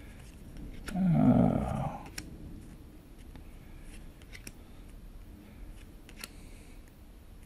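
Magic: The Gathering cards being slid and flipped one at a time through a handheld stack, with light scattered clicks and snaps of card stock. About a second in, a short hummed vocal sound, the loudest thing here.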